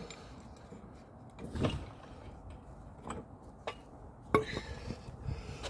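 A few separate knocks and clunks, loudest about a second and a half in, from the car being let down off its jack and the jack and tools being handled.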